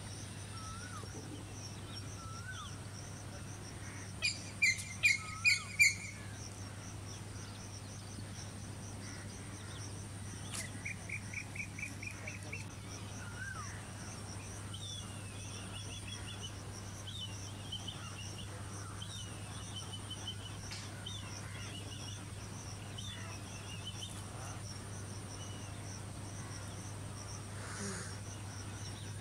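Steady high-pitched insect drone with birds calling over it. About four seconds in, one bird gives five loud calls in quick succession, followed later by a quick run of notes and scattered chattering calls.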